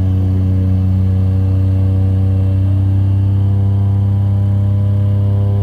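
Turboprop aircraft's engine and spinning propeller heard from inside the passenger cabin in cruise: a loud, steady, deep drone with a stack of overtones above it.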